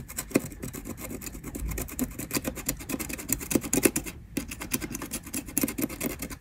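Quick, scratchy strokes of the tip of a pair of side cutters scraping solder mask off a calculator's circuit board where it looks corrosion-damaged, with a brief pause about four seconds in.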